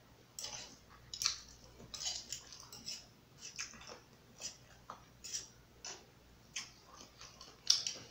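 A person eating sausage and rice with a plastic fork: close-up chewing and mouth sounds in irregular short clicks and smacks, the loudest near the end.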